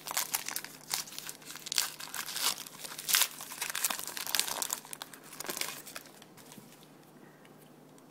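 A trading-card pack wrapper being torn open and crinkled, in irregular crackles that die down about six seconds in.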